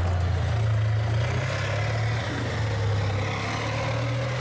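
Tank driving past at close range, its engine running steadily with a deep, low drone.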